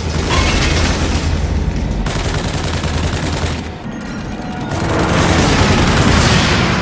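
Dense rapid gunfire with booms, a battle-scene soundtrack of machine guns and anti-aircraft fire against attacking aircraft; it eases briefly about halfway through, then comes back loud.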